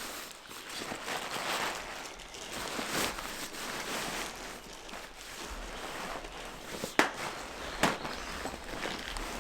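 Footsteps of a hiker walking on a forest trail, a rustling crunch swelling and fading with each step, with two sharp clicks near the end.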